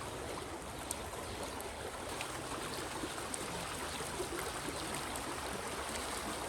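Rushing river water running steadily, with a few faint sharp clicks over it.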